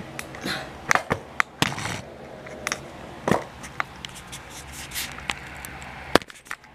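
Handling noise from a camera being adjusted by hand: a scattered run of clicks and taps with brief rubbing sounds, and a sharp click about six seconds in.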